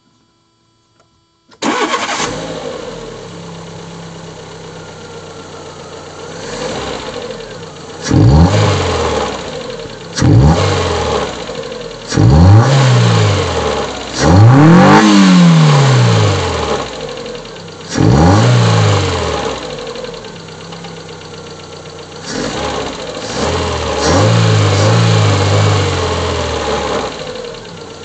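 Fiat Punto Mk2 1.2 16V four-cylinder petrol engine starting about two seconds in and idling, then revved in five quick blips, the longest about halfway through, before dropping back to an idle that swells and wavers near the end. The idle is rough, the fault the owner is showing.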